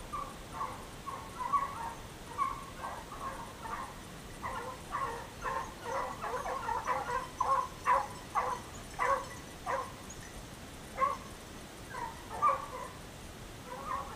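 Hunting hounds baying: a quick run of short yelps that comes thickest around the middle and thins out toward the end.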